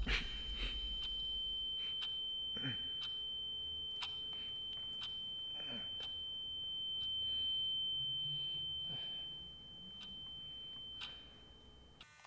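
A steady high-pitched ringing sine tone, like ringing in the ears, with faint scattered clicks and soft muffled low sounds beneath it; the tone cuts off abruptly near the end.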